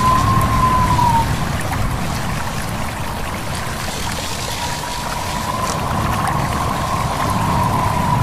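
Stream babbling steadily under wind, with a thin, high whistle of wind that wavers, fades out about a second in and returns about halfway through.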